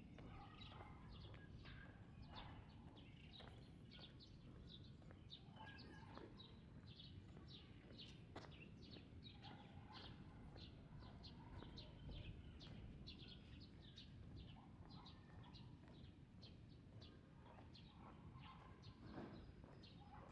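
Faint birds chirping: a quick run of short, high notes, several a second, with a few softer, lower calls, over a faint low rumble.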